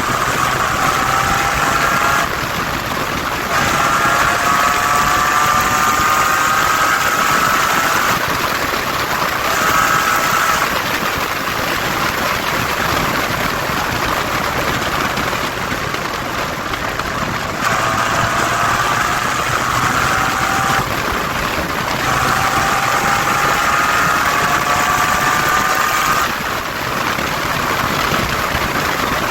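Mitsubishi FTO GPvR's 2.0-litre 6A12 MIVEC V6 with a loud exhaust, pulling up through the revs again and again. Each pull climbs steadily in pitch over a few seconds, then breaks off briefly before the next.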